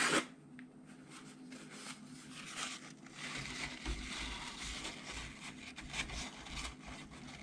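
Paper towel crumpling and rustling as it is folded and pushed in under a radio chassis, with dull low bumps of hands against the chassis from about halfway through.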